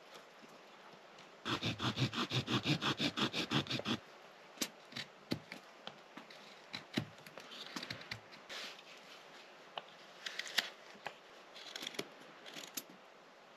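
A Leatherman multitool working green wooden sticks. Early on there is a fast, even run of short saw strokes, about nine a second, for a couple of seconds. After that come scattered knife scrapes and sharp clicks as the blade whittles and notches the wood.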